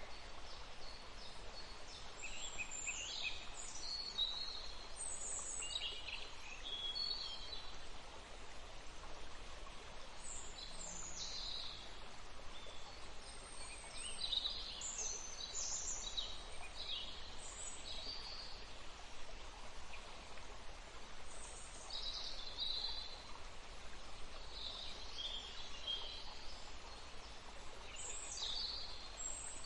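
Forest ambience: small songbirds chirping and trilling in overlapping high, quick phrases over a steady soft background hiss.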